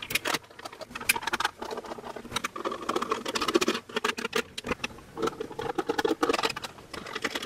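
White plastic case of a touch-free soap dispenser being handled and worked at on a silicone mat: a fast, irregular run of small clicks, taps and scraping.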